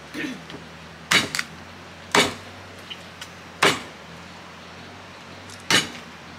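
A knife chopping chicken on a chopping board: four sharp single chops, irregularly spaced a second or two apart, and a fifth right at the end.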